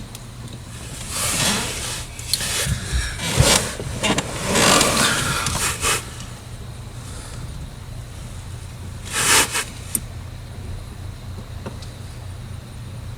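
A small metal hinge pin and needle-nose pliers scraping and clicking against the plastic gear-selector button and shifter housing, in several short bouts, as the pin is worked toward its hinge hole. A steady low hum runs underneath.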